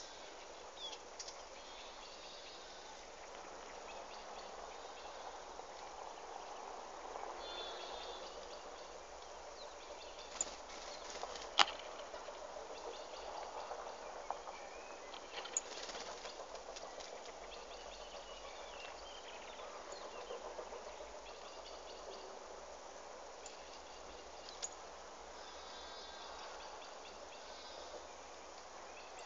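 Small birds chirping here and there over a faint, steady outdoor hiss, with a few sharp clicks, the loudest about halfway through.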